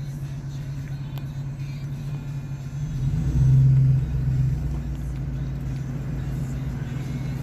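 Car engine running at idle with a steady low hum. It swells louder for about a second and a half, starting about three seconds in, then settles back.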